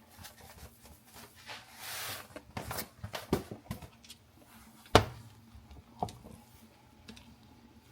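A spoon stirring and scraping thick instant mashed potatoes in a pot, with a sharp knock about five seconds in and a smaller one about a second later.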